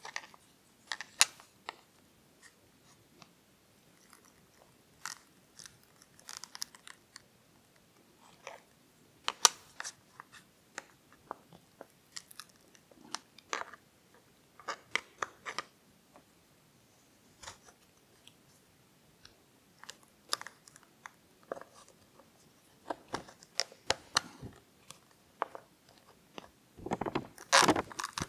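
Flat-blade screwdriver prying apart a 3D-printed plastic tire mold to free a cast silicone tire: irregular clicks, snaps and crackles of the plastic parts and blade, with a denser run of crackling near the end.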